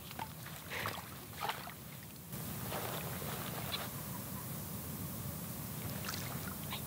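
Cast net being handled and lowered into shallow ditch water: a few short splashes and rustles over a steady outdoor hiss, which grows wider and brighter abruptly a little over two seconds in.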